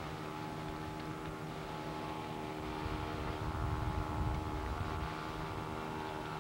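Wind buffeting a camcorder microphone: low rumbling gusts that swell about three to five seconds in, over a steady low hum.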